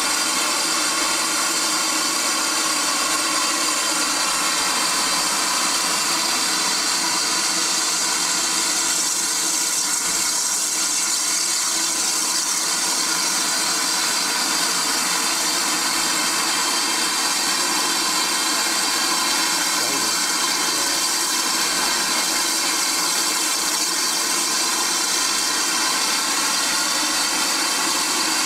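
Steam hissing steadily from the front end of a GWR pannier tank steam locomotive standing at the platform, with faint steady tones under the hiss.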